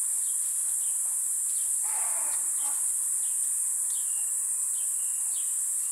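Steady high-pitched insect drone from the dry African bush, with scattered short bird chirps and a couple of brief whistles. A short soft noise comes about two seconds in.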